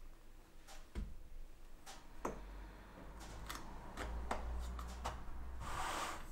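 Light wooden taps and clicks as mitered box sides, hinged at the corners with masking tape, are folded up around a thin panel, with a brief soft rustle near the end.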